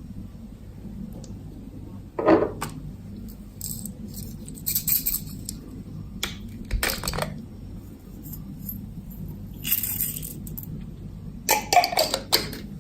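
Clear slime being handled with small objects mixed into it: scattered short clicks, clinks and crackly rustles, with a quick run of clicks near the end.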